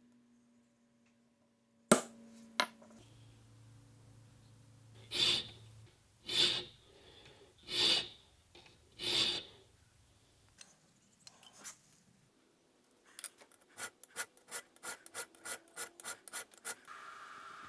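Hand file working the end of a small steel touchmark stamp clamped in a vise: two sharp knocks about two seconds in, then four slow, long file strokes. After a pause comes a run of about a dozen short, quick strokes, roughly three a second. The file is cutting the steel only slowly.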